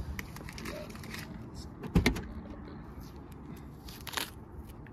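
Two sharp knocks about two seconds apart, the first the louder, over a low steady background rumble.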